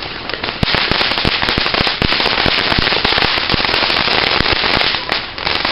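Firework fountains spun on poi, hissing steadily and crackling with rapid, irregular pops. The sound jumps up loudly about half a second in.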